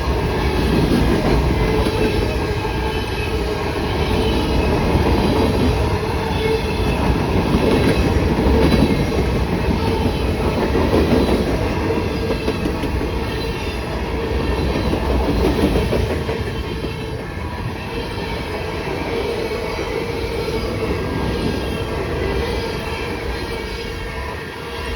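Freight cars of a long CSX freight train rolling steadily past on a curve, wheels clattering over the rail joints, with a steady squeal from the wheels in the curve.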